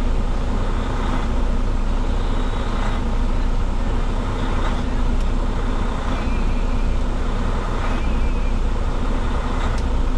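Semi truck's Detroit diesel engine idling steadily.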